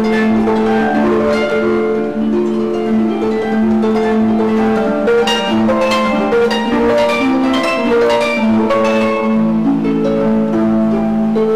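Harp music: a plucked melody of quick notes over a steady low note.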